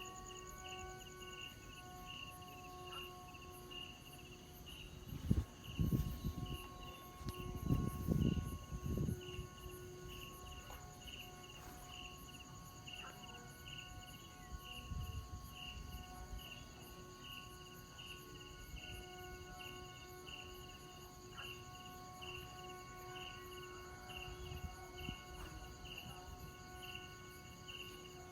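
A kite flute (sáo diều) of the 'train horn' kind, sounding from a flying kite as a steady, horn-like chord of several held tones. Crickets chirp under it in a fast, even rhythm. Two low rumbles come about five and eight seconds in.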